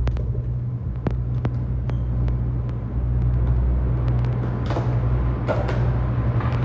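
A steady low droning hum of room machinery, with a few light clicks and taps scattered through it.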